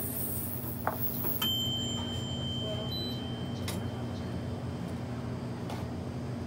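Steady low background hum, with a sharp click about a second in and a thin, steady high electronic tone that starts abruptly just after and lasts about a second and a half.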